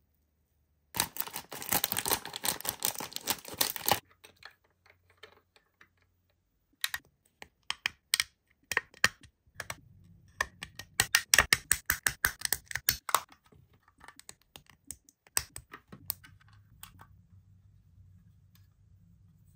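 Plastic toy pieces and packaging being handled: a dense run of crinkling, crackling clicks lasting about three seconds, then scattered sharp clicks and a second dense run of rapid clicking near the middle.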